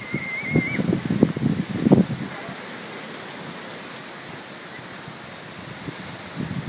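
Hurricane Sandy's winds: gusts buffet the microphone for the first couple of seconds, then settle into a steady rush of wind and surf.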